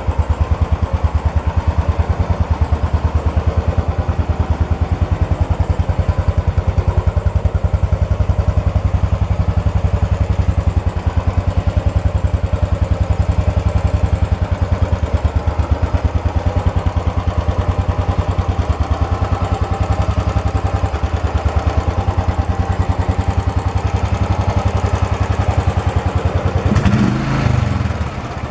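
Royal Enfield Bullet C5 Classic's 499 cc single-cylinder four-stroke engine idling with a steady, even thumping beat. It dips briefly near the end.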